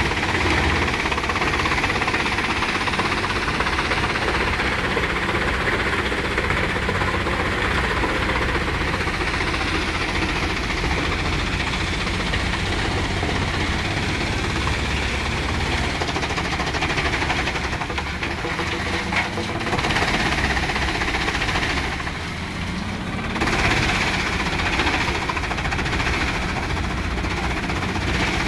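Industrial car shredder running, a steady heavy mechanical drone with dense grinding noise. It briefly drops in loudness about 22 seconds in.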